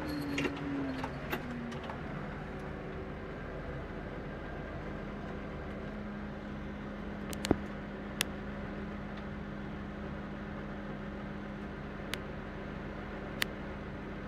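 John Deere tractor's diesel engine running steadily as it drives over a silage pile, with a few sharp clicks, the loudest about halfway through.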